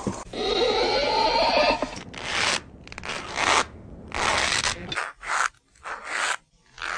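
Rasping, scraping strokes from a hand-worked sound-effects prop: one long stroke, then about six shorter ones with growing gaps between them.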